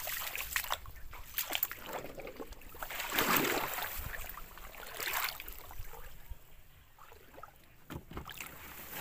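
Water sloshing and splashing as someone moves through shallow floodwater, with irregular rustles and light knocks. The loudest swish comes about three seconds in, and it goes quieter for a while near the end.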